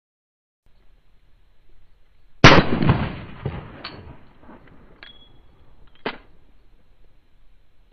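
A single handgun shot about two and a half seconds in, with a tail that dies away over about a second, followed by three fainter sharp clicks.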